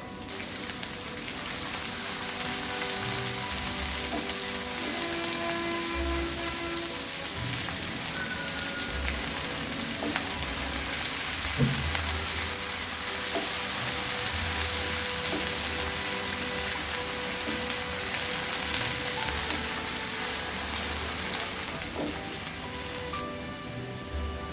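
Food frying in hot oil in a pan, with a steady sizzle and a single sharp tick partway through. The sizzle eases off a little near the end.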